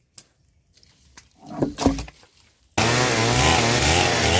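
A few knocks and rustles, then a Stihl 070 two-stroke chainsaw cuts in abruptly about two-thirds of the way in and runs loud, its engine speed rising and falling over and over.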